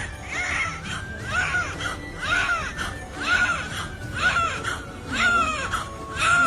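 Newborn baby crying in short, even bursts, about one a second, with music underneath.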